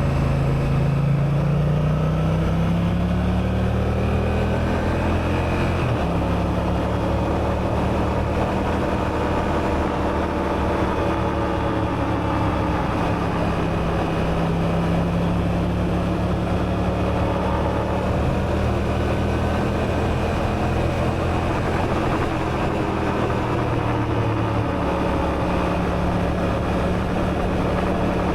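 Honda Africa Twin's parallel-twin engine under way, with wind rush. Its revs climb for the first few seconds and step abruptly at a gear change about six seconds in. It then settles to a steady cruise, with a small change in engine note near the end.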